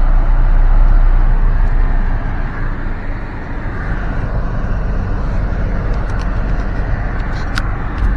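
Steady low rumble of a car moving slowly, heard from inside the car, easing a little a couple of seconds in, with a few faint clicks near the end.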